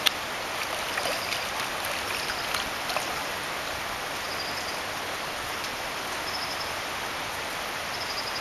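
Shallow stream running steadily over gravel, with a few light clicks in the first three seconds. A faint, short high chirp repeats about every two seconds.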